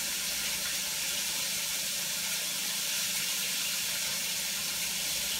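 Meat frying in a pan, a steady even sizzle with no break.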